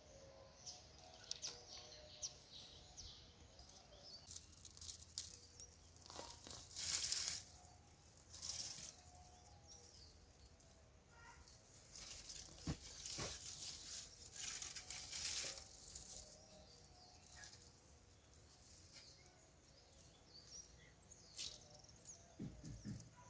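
Scraping and rustling of soil and dry potato plants being dug and pulled by hand during a potato harvest, in irregular bursts, with two sharp knocks about halfway through. Faint birdsong in the background.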